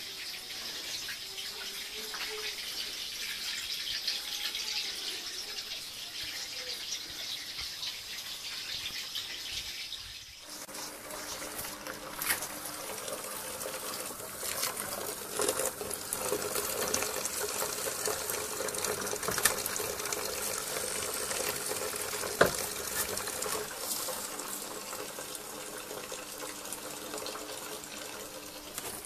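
Running water as cold water flows through an immersion wort chiller sitting in the hot wort. About ten seconds in the sound changes to cooled wort pouring and splashing from a siphon hose into a plastic bucket, with a few sharp knocks.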